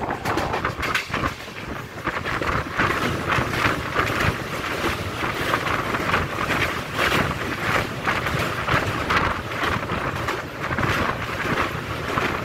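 Passenger train running along the track, with wind buffeting the microphone in irregular gusts.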